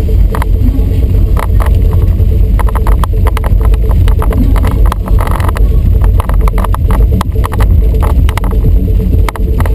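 Car tyres rumbling over a wet cobblestone street, heard from inside the cabin: a loud, heavy low rumble with a rapid, irregular rattling and clicking.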